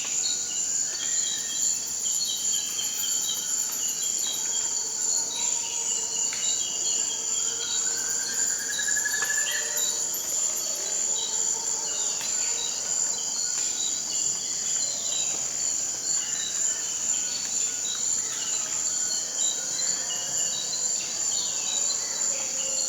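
Rainforest ambience: a steady, high-pitched chorus of insects, with a short chirp repeating about once a second. Scattered bird calls sound over it, including a rising call about eight seconds in.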